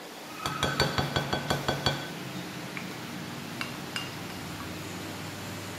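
Wooden spoon clinking against a glass mixing bowl while flour dough is stirred: a quick run of about ten ringing clinks in the first two seconds, then a few faint taps.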